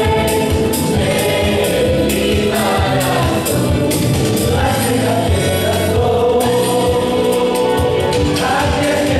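Israeli pop song medley played loud, with a group of voices singing over a steady dance beat.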